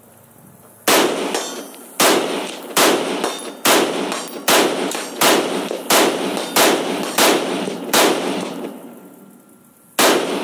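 Semi-automatic CZ Bren 2 Ms 5.56 mm rifle with a 14-inch barrel firing a string of shots. Ten shots come at an even pace, a little under a second apart, starting about a second in, each trailing off in echo; after a two-second pause, one more shot comes near the end.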